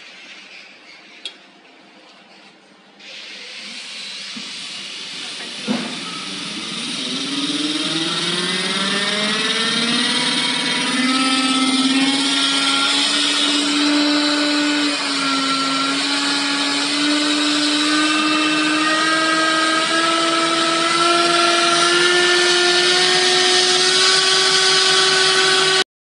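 7.5 kW inverter-driven DAVV screw air compressor starting up. A click comes about a second in, a hiss builds from about three seconds, and a knock comes near six seconds. Then the compressor's whine of several tones rises in pitch as the drive ramps the motor up, and it runs on loaded with a steady whine, still creeping slowly higher.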